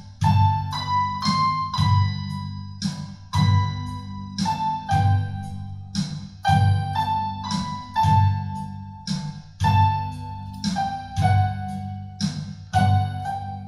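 Slow piano music: a melody of single notes over low chords, with a new note struck about every one to one and a half seconds.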